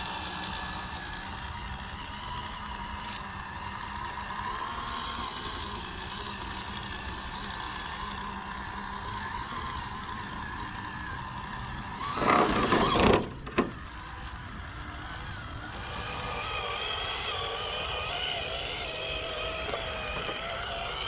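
Small electric motor and geartrain whine of scale RC crawler trucks driving over rough ground. About twelve seconds in there is a loud, rough, noisy burst lasting about a second, then a short one. From about sixteen seconds the whine shifts higher and wavers.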